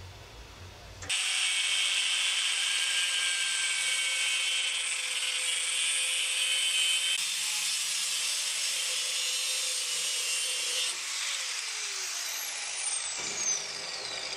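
Angle grinder with a cut-off disc cutting through the old handle at the eye of a steel ball peen hammer head. It starts suddenly about a second in with a steady high-pitched whine over the grinding noise, then eases after about ten seconds into a falling whine as the disc spins down near the end.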